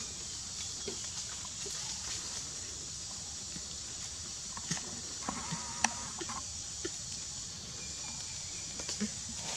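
Outdoor ambience: a steady high-pitched hiss with scattered soft clicks and taps clustered a little past halfway, and a faint, brief chirp among them.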